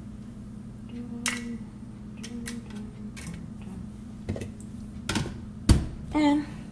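A few light clicks as spiders are dropped into an empty blender jar. Near the end comes a louder knock as the lid is pushed onto the jar.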